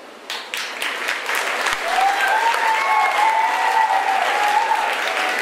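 Audience applauding, breaking out just after the start, with a long drawn-out cheering whoop over the clapping from about two seconds in.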